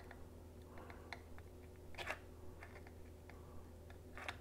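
Faint scattered clicks and ticks of a hot glue gun being worked against a plastic box as glue is laid on, the clearest about two seconds in and again near the end, over a low steady hum.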